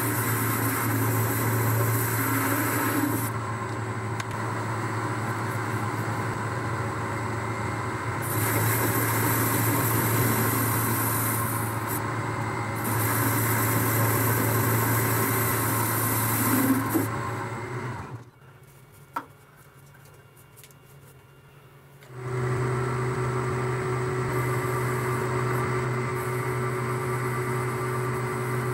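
Metal lathe turning a metal bar held between chuck and tailstock centre: the motor and spindle run steadily while the cutting tool takes a cut, the high cutting noise coming and going several times as the tool feeds. About two-thirds through it drops to near quiet for a few seconds with a single click, then the lathe runs again with a slightly different tone.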